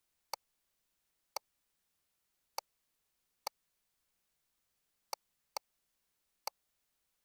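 Seven short, sharp clicks at irregular intervals, each a single snap with no ringing after it, over otherwise dead silence.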